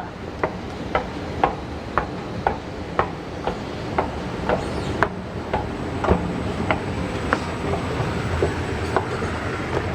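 Footsteps of a person walking on a hard surface, about two steps a second, over steady background noise of an open urban space.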